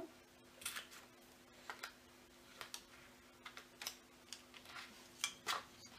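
Small handheld single-hole punch clicking as it punches out the ring holes in a paper planner insert: a string of short sharp clicks, many in close pairs, about one pair a second.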